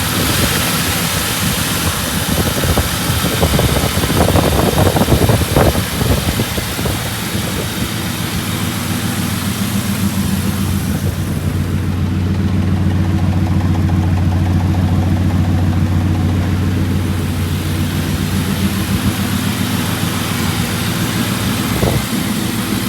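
The 4.6-litre V8 of a 2003 Ford Crown Victoria Police Interceptor running at a steady idle, with a louder, rougher stretch about five seconds in.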